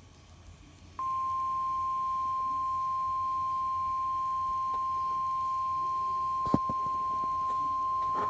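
Emergency Alert System attention tone: after about a second of quiet, a single steady beep starts sharply and holds at one pitch, with one brief click about two-thirds of the way through. It signals that a severe thunderstorm warning message is about to follow.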